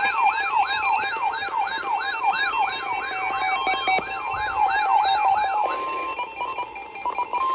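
Electronic siren-style alert tone, wailing rapidly up and down about three times a second, sounding as a new weather warning comes in. About six seconds in it gives way to short beeps and a steady tone.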